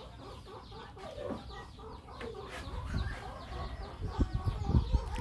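Chickens clucking in the background, with a run of low thumps starting about four seconds in.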